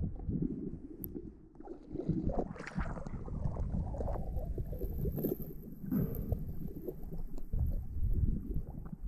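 Underwater sound picked up through a camera housing: uneven low, muffled rumbling of moving water with scattered soft knocks, and a faint high whine from about four seconds in.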